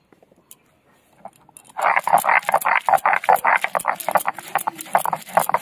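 Green chillies, mint and coriander leaves being ground by hand on a stone grinding slab (shil-nora): rapid rhythmic scraping and crushing strokes of stone on stone and wet leaves, starting about two seconds in.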